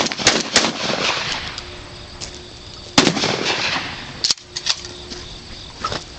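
A 12-gauge Remington 11-87 semi-automatic shotgun fired twice, once right at the start and again about three seconds in. Each blast trails off in a rolling echo, and a few lighter clicks follow the second.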